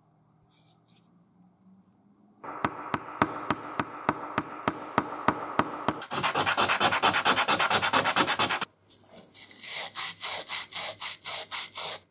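Sandpaper rubbed by hand over a small dented metal oiler cap in quick back-and-forth strokes, about four a second, starting a couple of seconds in. The scratching turns denser and harsher in the middle, stops for a moment near three-quarters through, then resumes in even strokes.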